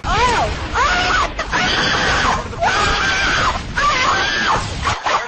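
A high-pitched voice screaming in a series of rising-and-falling cries over a noisy background.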